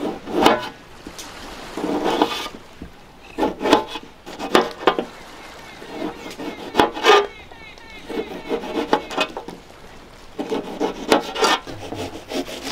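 Chef's knife slicing and chopping a tomato on a hard cutting surface: short runs of quick knife taps and scrapes with brief pauses between them.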